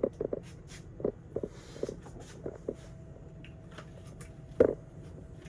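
Kitchen handling noise: a series of light clicks and clunks of containers and cookware being set down and moved, with one louder knock about four and a half seconds in, over a steady low hum.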